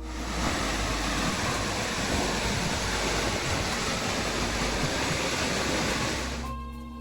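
Waterfall's rushing water, a steady dense noise that gives way to music about six and a half seconds in.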